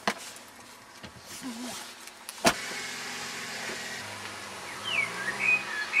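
A car door is shut with a loud slam about two and a half seconds in, after a click at the start; the car's engine then runs steadily. Birds chirp near the end.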